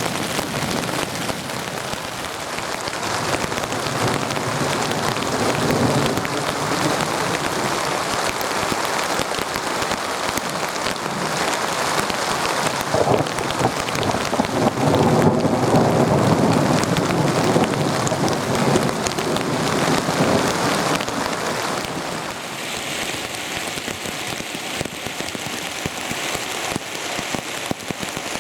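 Steady rain, many close drops pattering on a surface, easing a little about three quarters of the way through.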